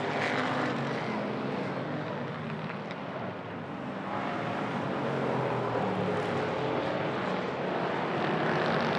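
Hobby stock race cars running at speed on an oval track, several engines at once. The sound eases a little a few seconds in, then engines rise in pitch and grow louder as the cars accelerate past.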